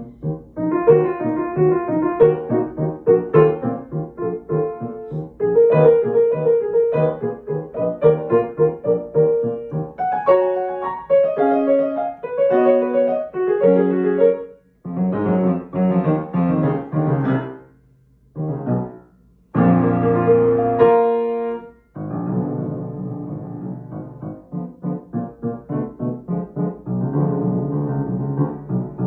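Solo piano played with both hands: a flowing passage of quick notes, broken by a couple of brief pauses about two-thirds of the way through.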